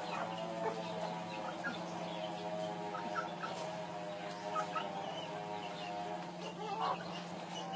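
Domestic hens clucking in short scattered calls, over a steady hum.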